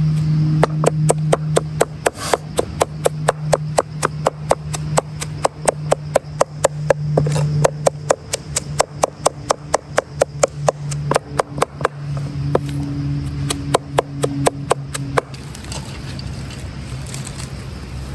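Rapid, even knife chopping on a wooden board, about three to four strokes a second, over a steady low hum: the sound of mincing meat for momo filling. The chopping stops about fifteen seconds in.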